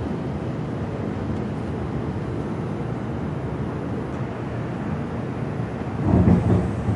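Steady low rumble inside a subway car as the train pulls out of a station, with a louder rumbling surge about six seconds in.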